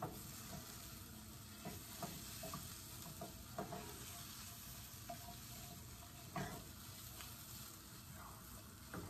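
Carrots, onion and tomato paste sizzling softly in a frying pan, with irregular scrapes and knocks of a spatula stirring them. The tomato paste is browning on the bottom of the pan.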